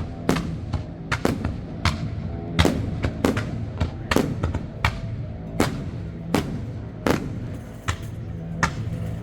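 Fireworks going off: a rapid, irregular string of sharp bangs, about two a second.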